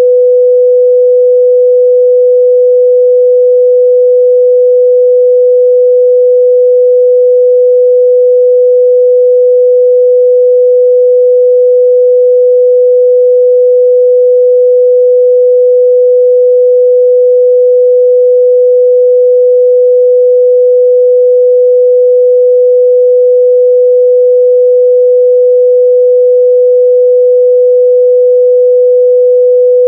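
A steady, loud 497 Hz sine-wave test tone: one pure unbroken pitch with nothing else.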